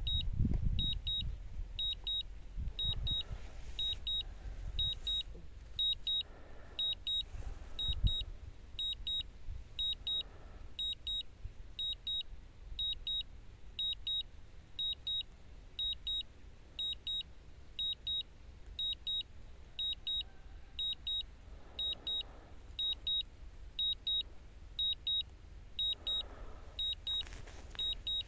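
Low-battery warning beeps from a DJI Phantom 3 Advanced's flight controls: short high double beeps repeating evenly about once a second while the drone flies home on return-to-home. A low rumble runs under them, with a couple of dull thumps near the start and about eight seconds in.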